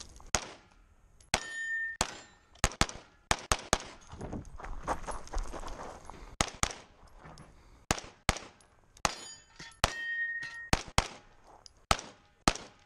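Rapid pistol fire from an Open-division race pistol with a red-dot sight: sharp shots, mostly in quick pairs, with short pauses between strings. Twice, about a second in and near the ten-second mark, a brief ringing tone follows the shots.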